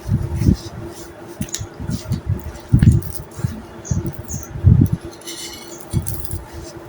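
Dry sand-clay crumbling by hand in irregular dull crunches and thuds, the loudest about three seconds in and again just before five seconds.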